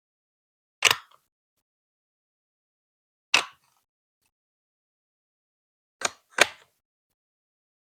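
Plastic Lego Duplo bricks clicking sharply into place, four separate snaps: one about a second in, another past three seconds, and a quick pair past six seconds.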